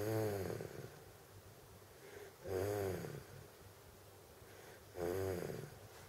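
Toddler with Down syndrome snoring in her sleep: three snores about two and a half seconds apart, each under a second long with a pitch that rises and falls, and quiet breathing in between.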